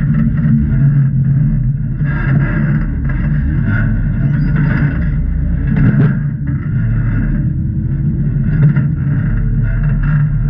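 Jeep engine running steadily at low crawling speed, with a brief sharp click about six seconds in.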